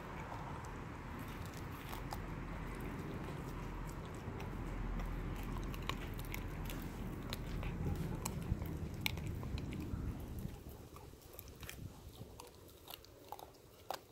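Renascence Bulldogge puppy chewing a whole raw tilapia, with crisp crunches and clicks as it bites through the fish's bones. A low rumble under the first ten seconds or so dies away, leaving the crunching clearer.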